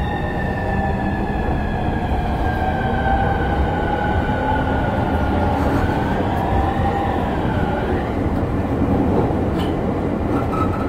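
E231 series electric train's VVVF inverter whine heard from inside the car while accelerating: the 'falling' inverter tone, dropping steadily in pitch for about five seconds, then wavering up and down before it fades. Under it runs the steady rumble of the moving train.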